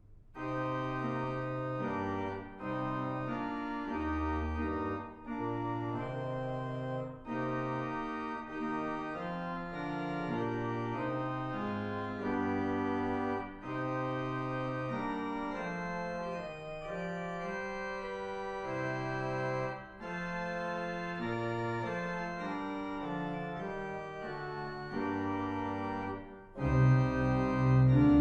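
Organ playing a slow, hymn-like piece in held chords that change about every second, with brief breaks between phrases; it swells louder near the end.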